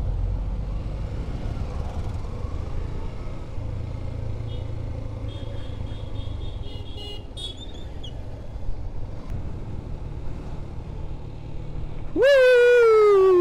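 Motorcycle riding down a hill road: a steady low rumble of engine and wind. Near the end a vehicle horn honks loudly for about a second and a half, its pitch sagging before it cuts off.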